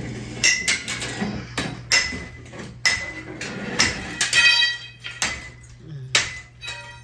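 Ceiling fan being struck over and over with a hand-held weapon: about nine sharp, irregular blows, a few of them clanging with a brief metallic ring.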